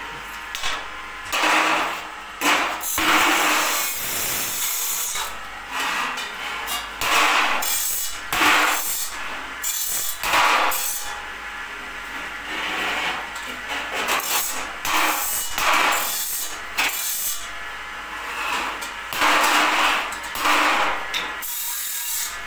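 Steel bars scraping and rubbing against each other and the concrete floor as they are shifted into position, in irregular gritty strokes about once a second.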